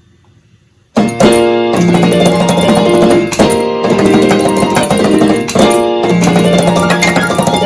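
A Yamaha electronic keyboard playing a piano tune, its keys pressed by a 1978 Pianocorder's solenoids. It starts about a second in with chords struck every second or so.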